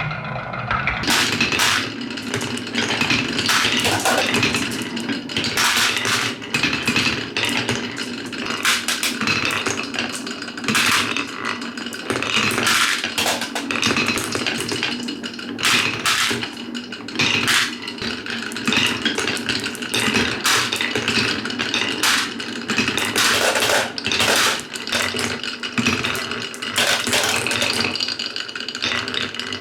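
Marbles rolling and clattering down wooden marble-run tracks: a dense, unbroken run of clicks and knocks.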